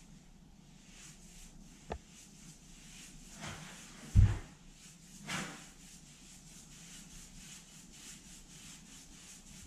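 Paintbrush strokes cutting primer in along the top of a baseboard, a faint repeated rubbing on the wall. A click about two seconds in and a single dull thump about four seconds in, the loudest sound.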